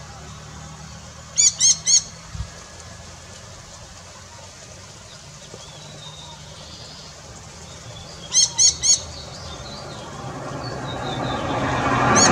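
Jandaya parakeets calling: a burst of three quick, shrill screeches about a second and a half in, and another burst of three about eight seconds in, over a low steady rumble. Near the end a rush of noise swells up.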